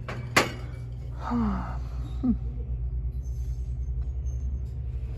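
Dishware handled on a store shelf: one sharp clink about half a second in, then two shorter scraping sounds with a brief falling squeak, over a steady low hum.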